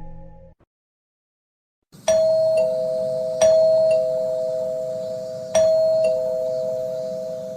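Doorbell-style ding-dong chime: a high note followed by a lower note, sounded three times, each pair ringing on and slowly fading. Before it, the end of a previous sound effect with a low hum cuts out about half a second in, followed by a second of silence.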